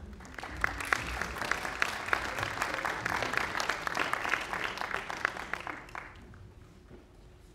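Audience applauding, a dense patter of many hands clapping that fades out about six seconds in.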